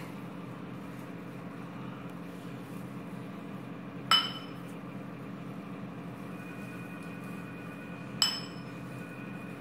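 A metal spoon clinks twice against a ceramic bowl, about four seconds apart, each strike ringing briefly, over a steady low hum.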